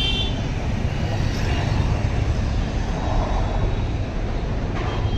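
Steady street traffic noise, a low rumble with no clear single vehicle. A brief high tone sounds right at the start.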